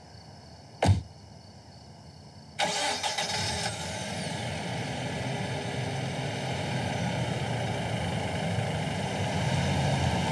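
A single thump, then about two and a half seconds in a Mercedes-Benz compact SUV's engine starts and runs on at a steady idle.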